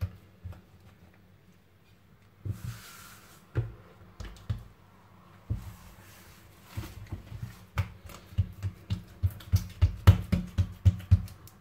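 Oiled palms patting and pressing a ball of msemen dough flat on a wooden board: a few scattered soft slaps at first, then a quick run of them, about two to three a second, through the last few seconds.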